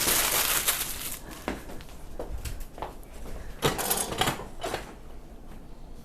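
A patient turning over on a padded chiropractic table: a burst of rustling and shifting, a few soft knocks, then a second shorter rustle about three and a half seconds in.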